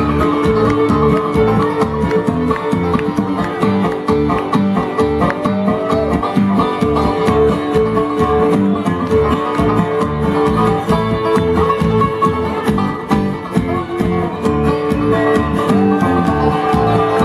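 Bluegrass band playing an instrumental break live, with plucked banjo and guitar over a steady driving bass rhythm.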